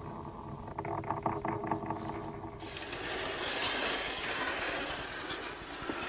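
Film sound effects: a low steady drone with a few light knocks. About two and a half seconds in it gives way to a rough scraping and scuffling noise.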